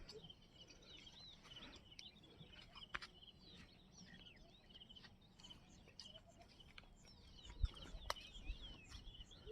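Faint chirping and twittering of several small birds, with short repeated trills and curving whistles. A few soft clicks and a low knock come near the end.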